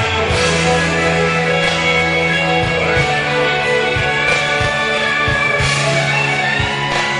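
Karaoke backing track in an instrumental break: a guitar leads over held bass notes and a steady drum beat, with no singing.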